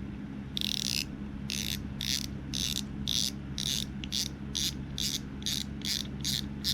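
Tsurinoya NA3000 spinning reel clicking as it is twisted apart: short bursts of rapid clicking, two or three a second, coming faster near the end.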